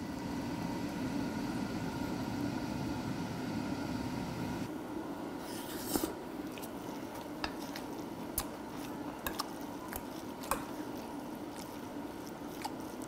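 A spoon mixing rice bibimbap in a stainless steel bowl, then chewing and eating, with the spoon clicking sharply against the metal bowl every second or so.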